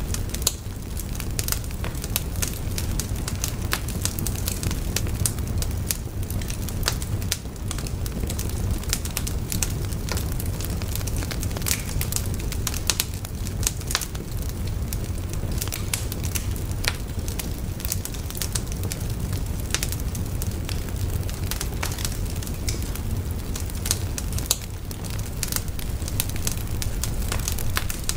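Fire burning, with dense irregular crackles and pops over a steady low rumble.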